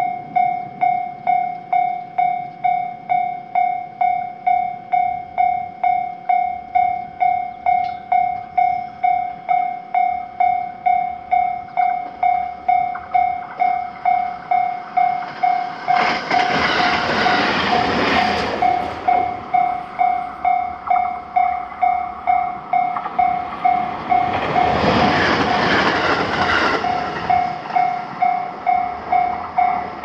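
Japanese level-crossing electronic warning bell ringing in a quick, even rhythm of dings. Two electric trains rattle past over the rails, one about halfway through and another later on, each for about three seconds and louder than the bell. The bell stops right at the end.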